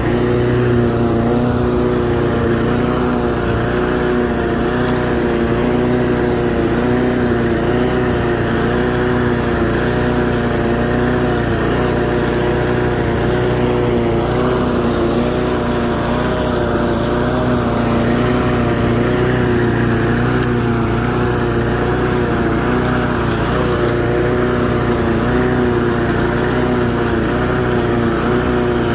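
Briggs & Stratton pressure-washer engine on a homemade walk-behind mower running steadily while mowing grass, its pitch wavering slightly.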